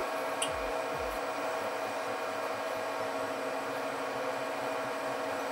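Z-axis stepper motors of a Wanhao Duplicator i3 3D printer homing slowly under a G28 command: a steady whine of several fixed tones.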